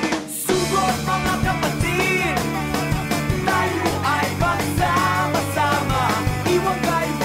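Background rock music with singing and a steady beat.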